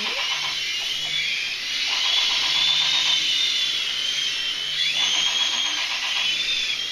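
Small electric RC helicopters whining in flight, their high motor and rotor pitch wavering up and down as they are flown against each other.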